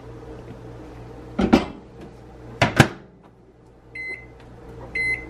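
Microwave oven being reloaded: two clunks, the loudest near three seconds in, as the door is opened and shut, then two short high keypad beeps about a second apart as it is set to heat the bowl of oats again.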